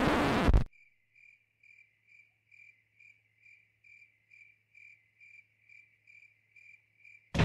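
A brief loud rushing burst of noise cuts the piano music off. Then a cricket chirps steadily, about two and a half chirps a second, over a faint low hum.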